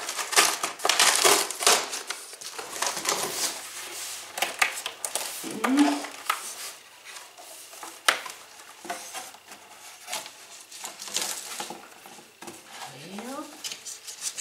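Cardboard shipping box being opened and its cardboard packing insert pulled out: rustling, scraping and crinkling of cardboard with sharp knocks, busiest at the start.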